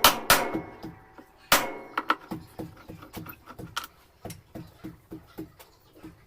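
Metal parts and tools being handled during washing machine disassembly: a few sharp metallic clanks that ring briefly, the loudest at the start and about a second and a half in, then a string of lighter clicks and taps.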